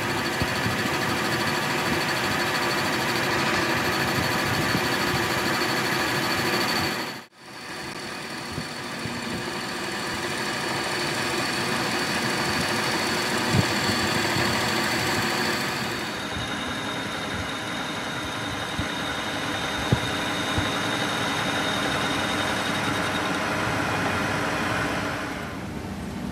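Metal lathe running and facing the end of a truck engine piston blank with a tool bit: a steady machine hum with a high whine over it and a few light ticks. The sound cuts out for an instant about seven seconds in, and dies down near the end as the lathe stops.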